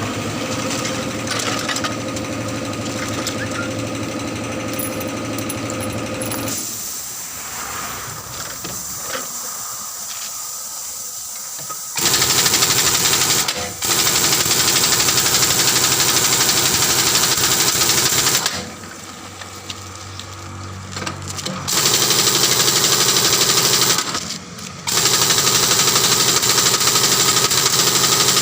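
Air tool in a truck tyre repair shop. A steady machine hum comes first, then from the middle on the tool runs in four loud bursts of a few seconds each.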